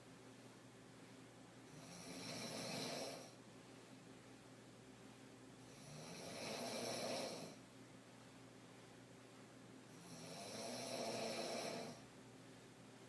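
A woman snoring deeply while sleeping on her back: three snores about four seconds apart, each swelling for a second and a half before cutting off.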